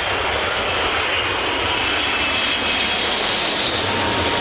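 Airbus A380 jet engines on arrival: a loud, steady rushing noise with a faint thin whine, swelling in the higher range near the end.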